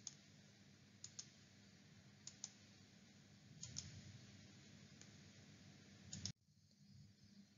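Near silence: faint room hiss with soft double clicks about every second or so, five or six in all. The background noise cuts off abruptly near the end.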